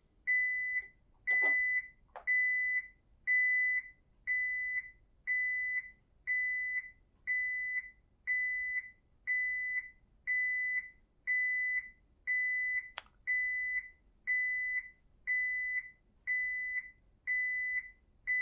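PROA7PLUS alarm panel sounding its entry-delay warning: a steady high beep repeating about once a second, each about half a second long, counting down the time left to disarm before the alarm trips. A faint click or two sounds between the beeps.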